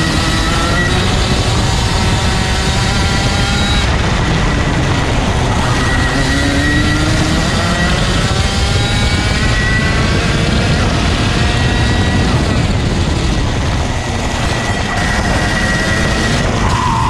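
125cc single-cylinder two-stroke TAG kart engine running, its pitch rising several times in long glides as it accelerates out of corners and dropping back between them.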